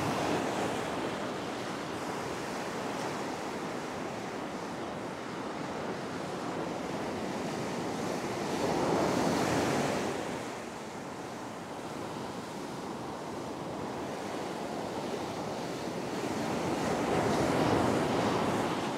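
Ocean surf breaking on a beach: a steady wash of water with two louder waves crashing, one about halfway through and another near the end.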